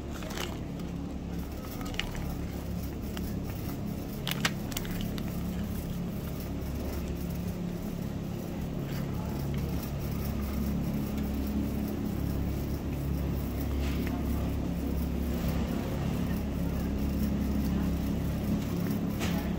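Shopping cart being pushed across a hard store floor: a steady rolling rumble from its wheels that grows somewhat louder partway through, with a few sharp clicks.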